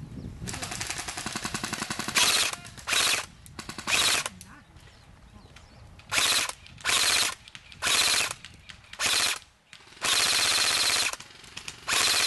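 Airsoft electric rifle (AEG) firing on full auto in short bursts: a softer run of rapid fire in the first two seconds, then about nine loud bursts of well under a second each, with one longer burst of about a second near the end.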